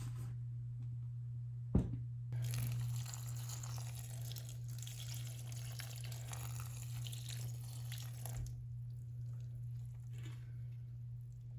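A single knock about two seconds in, then about six seconds of even rushing noise like water running from a tap, which stops abruptly; a steady low hum runs underneath.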